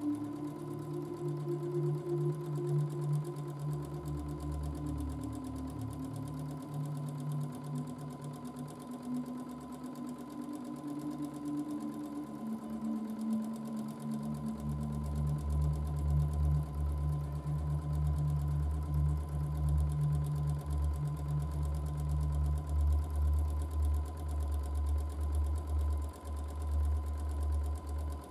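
Domestic sewing machine running through free-motion quilting, stitching continuously at varying speed through the quilt layers. It runs harder and louder about halfway through.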